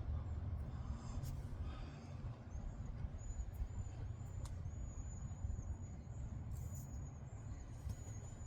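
Outdoor garden ambience: a steady low rumble of wind on the microphone, with a run of short, high-pitched chirps repeating over the last several seconds.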